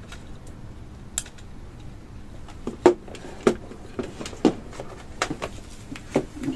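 Irregular light clicks and taps of plastic and wire being handled on a tabletop: a screw terminal strip, leads and a small electronic controller with plug-in terminal blocks. The loudest click comes about three seconds in.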